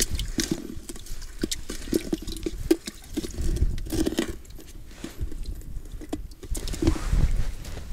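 Irregular wet crunching and clicking of slushy ice being worked at an ice-fishing hole.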